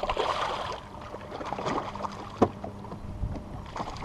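Water sloshing against a bass boat's hull, with scattered small clicks and one sharp knock about two and a half seconds in. Near the end a hooked bass splashes at the surface beside the boat.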